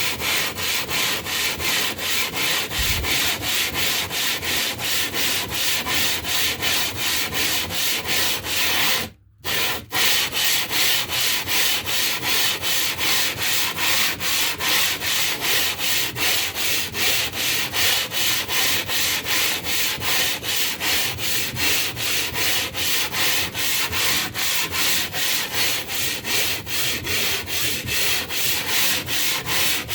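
A piece of limestone being ground flat with steady back-and-forth scraping strokes, about two to three a second, to wear away chips on the face meant for sharpening. The strokes stop briefly about nine seconds in, then carry on.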